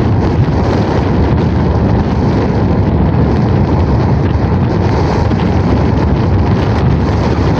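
Steady, loud wind rumble buffeting the microphone of a moving vehicle, with road and vehicle noise mixed in.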